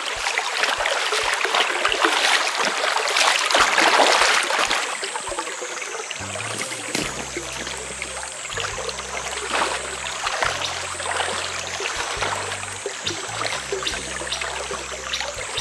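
Water splashing and trickling, loudest in the first few seconds, over a steady high wavering whine. Background music with a bass line comes in about six seconds in.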